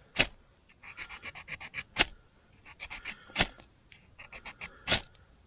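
A ferro rod is struck again and again onto tinder to light a fire: four sharp scrapes about a second and a half apart, with quieter rapid scratching between them.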